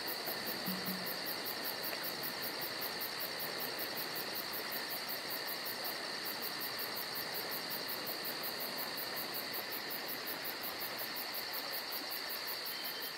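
Steady insect chorus: constant high trilling with a fast, even pulsing chirp above it.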